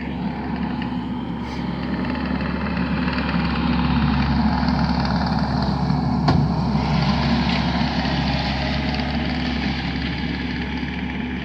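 An engine running steadily, swelling a little louder through the middle, with a single sharp click about six seconds in.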